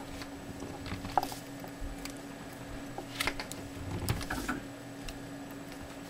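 A few faint scattered clicks and small handling sounds as needle-nose pliers squeeze a plastic squeeze-type crimp connector shut on wire leads, with a steady low hum underneath.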